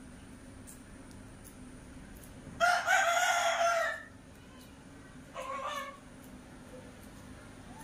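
A rooster crowing twice: one long, loud crow starting under a third of the way in, then a shorter, fainter one about a second and a half later.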